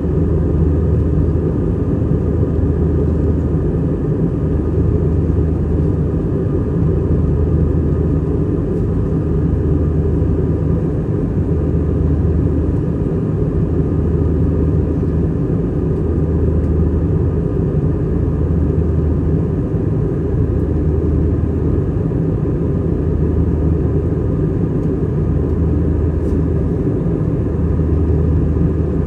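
Steady engine and airflow drone inside the cabin of an Airbus A320-200, heard from a window seat near the wing. A low hum in it swells and fades about every two seconds, the beat of the two engines running at slightly different speeds.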